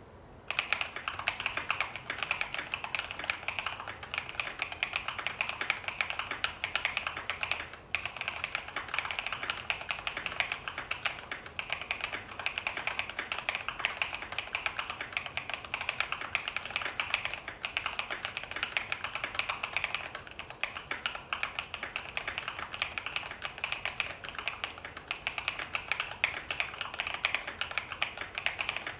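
Continuous fast typing on an Idobao ID80 Crystal mechanical keyboard with stock Prevail Epsilon tactile switches on a polycarbonate plate, foam- and tape-modded, with lubed Durock stabilizers. A dense stream of keystroke clacks begins about half a second in, with a brief break about eight seconds in.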